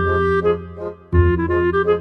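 Background music: sustained melodic notes over a low bass line, dropping out briefly about a second in before starting again.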